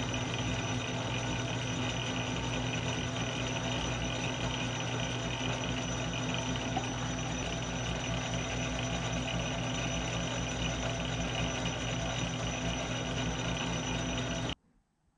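South Bend metal lathe running at low speed, a steady hum from the motor and gear drive with a high whine on top. It cuts off suddenly near the end.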